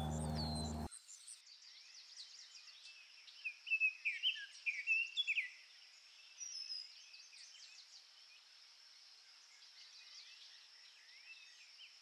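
Birds chirping in a forest, with a quick run of loud, short, high calls a few seconds in and one more a little later, over a faint steady high buzz. A low steady hum cuts off about a second in.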